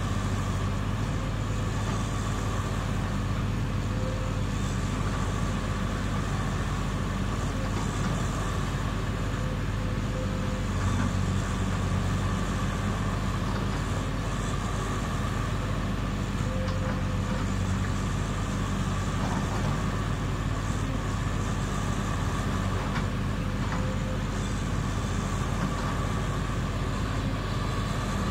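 Caterpillar 330 hydraulic excavator's diesel engine running steadily during its warm-up, with a steady high whine over the engine hum as the boom and arm are cycled.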